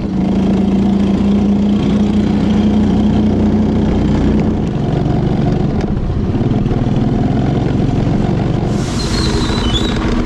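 Motorbike engine running as the bike rides along a road, with a steady engine note for the first few seconds that drops and changes about four and a half seconds in. A short higher hiss comes near the end.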